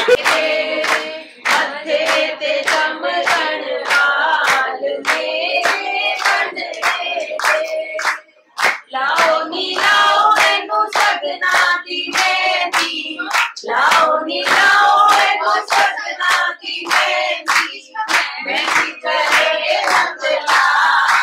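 A group of people singing a Hindu devotional song (bhajan) together while clapping their hands steadily on the beat, with a brief break about eight seconds in.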